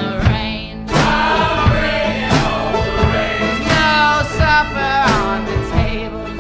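Recorded folk-rock song: voices singing over a full band, with a steady drumbeat that comes in about a second in.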